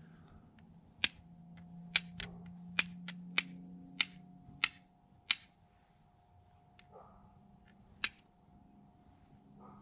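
Carbon-steel striker struck against flint held with char cloth: a run of sharp, scraping strikes, roughly one a second for the first five seconds, then one more about eight seconds in. Each strike throws sparks to catch an ember in the char cloth.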